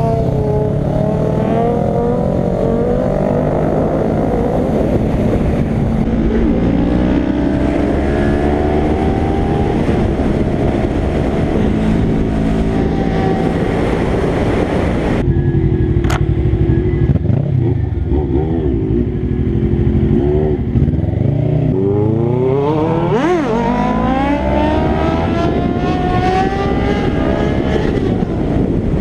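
Sport motorcycle engines revving and accelerating, several at once, their pitch climbing and falling repeatedly. The sound changes abruptly about 6 and 15 seconds in.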